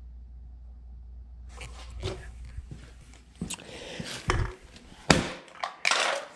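A faint low hum, then from about a second and a half in a run of sharp knocks and rattles: an empty aluminium beer can dropped onto a heap of empty cans, amid handling noise and footsteps as the camera is carried across a concrete floor.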